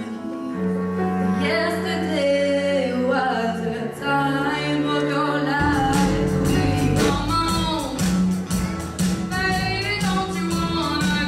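A girl sings into a microphone over long held notes on a cello. About five and a half seconds in, a drum kit comes in with a steady beat and singing carries on over it.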